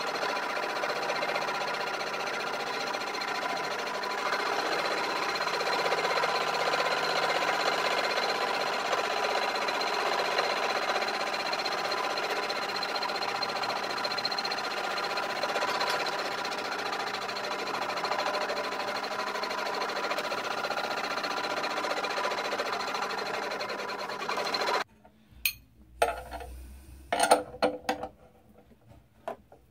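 A homemade cymbal lathe spinning a crash cymbal while a cloth is held against it to polish it: a steady whirring hum with a faint high whine. About 25 s in it stops suddenly, and a few sharp metallic clicks and knocks follow as a wrench works the nut that holds the cymbal.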